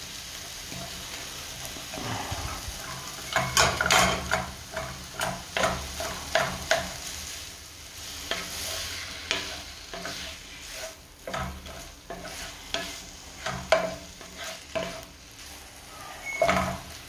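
Wooden spatula stirring and scraping a minced meat, onion and rice mixture around a speckled nonstick frying pan, in a series of uneven strokes, while the mixture fries with a soft sizzle over gentle heat.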